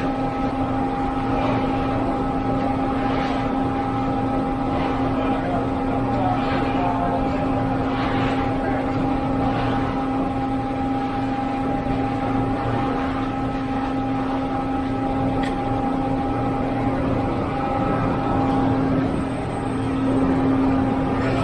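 Concrete pump truck's engine running at a steady speed: a constant low drone with a few steady higher tones riding over it.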